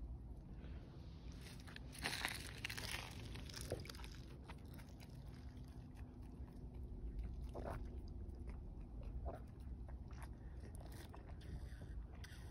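A goat slurping water from a tub, with wet sucking and mouth clicks in irregular bursts, the most sustained about two seconds in.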